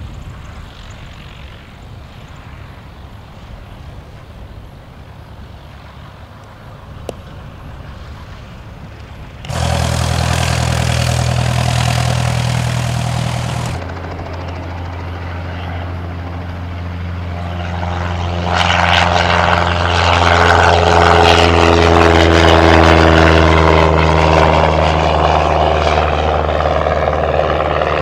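Cessna 172's single piston engine and propeller at full power on the takeoff roll and climb-out. It is faint and distant at first, jumps abruptly louder about ten seconds in, then grows louder still as the plane lifts off and climbs toward the microphone, with a steady droning pitch.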